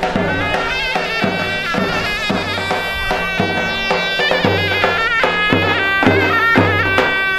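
Turkish folk dance music: a reedy wind instrument plays a wavering, ornamented melody over steady held tones, with a regular low drum beat.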